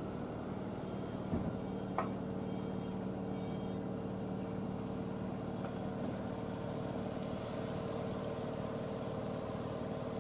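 Tobu 8000-series electric train passing, with a steady hum and two brief clanks about a second and a half and two seconds in.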